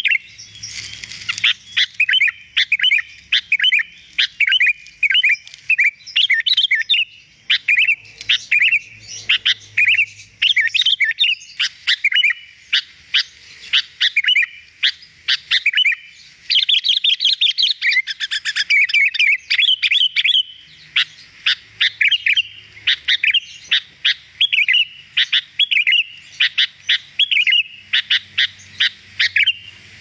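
Sooty-headed bulbul (kutilang) singing a fast, continuous song of short chirps and whistled notes, with hardly a pause.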